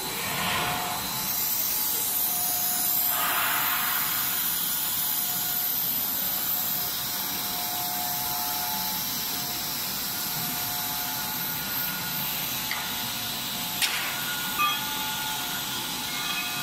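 Plastic extrusion line running: a steady machine hiss with faint steady motor tones. A sharp click and a short knock sound near the end.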